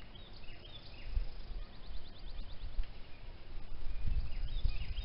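Small wild birds chirping, including a quick trilled run of about a dozen notes, over a low gusting rumble that builds after about a second.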